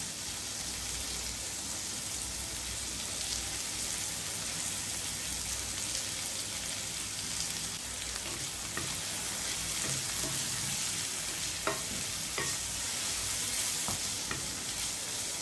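Sliced onions and garlic sizzling steadily in hot oil in a nonstick pan, with a few short clicks in the second half as a wooden spatula stirs them against the pan.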